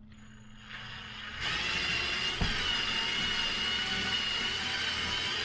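A small motor starts up and runs steadily with a high whine, building up over the first second and a half.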